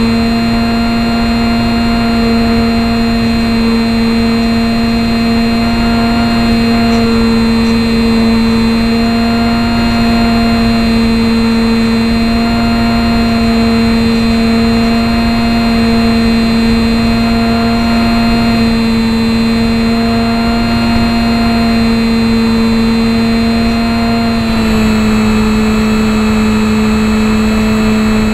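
Small electric motor and propeller of a HobbyZone Champ RC plane running at a steady buzzing drone, with wind rush, picked up close by the keychain camera mounted on the plane. The pitch drops a little near the end.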